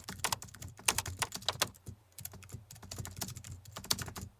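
Typing on a computer keyboard: quick, irregular key clicks, a fast flurry at first, a short pause about two seconds in, then slower, sparser keystrokes.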